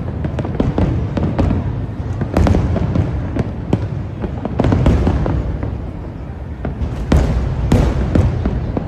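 Fireworks display: a continuous low rumble of bursting shells with many sharp bangs and crackles coming in irregular succession.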